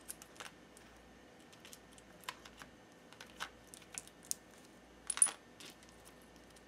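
Small stones and crystals clicking against one another and the tabletop as they are picked up and set down: a scatter of light, sharp clicks, with the loudest, briefly ringing knock about five seconds in.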